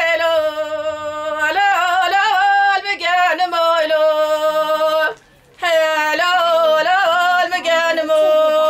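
A woman singing unaccompanied in the Kurdish dengbêj style: long held notes broken by ornamented, wavering turns. Her voice stops briefly for a breath about five seconds in.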